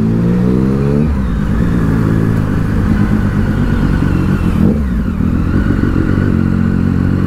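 Triumph Street Triple's three-cylinder engine under way. It rises in pitch over the first second as the bike accelerates, then runs on steadily at low speed.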